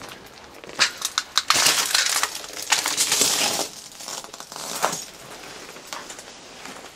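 Footsteps crunching over loose debris, with sharp cracks and clicks. The crunching is densest and loudest from about a second and a half to three and a half seconds in.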